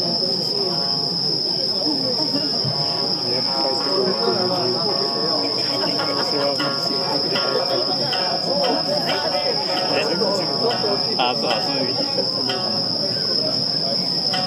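Steady high chirring of crickets, unbroken throughout, over the constant murmur of many people talking at once.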